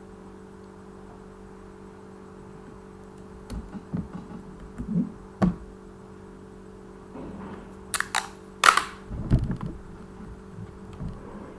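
Scattered knocks, taps and short rustles of small objects being handled and set down on a table, louder and bunched together about two-thirds of the way in, over a steady low electrical hum.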